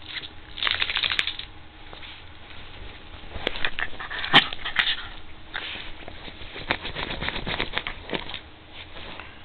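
West Highland white terrier scrabbling and rolling on bedcovers, its paws and body scratching and rustling the fabric in short bursts of clicks, with one sharper click about halfway through.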